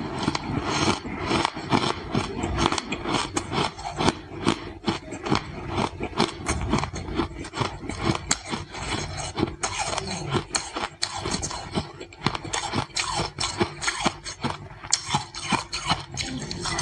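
Ice being crunched and chewed: a dense, irregular run of sharp, crackling crunches.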